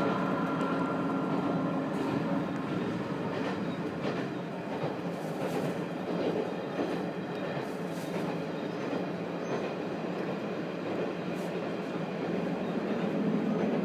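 Steady running noise inside a diesel railcar cruising along the track, with a few faint clicks from the wheels on the rails.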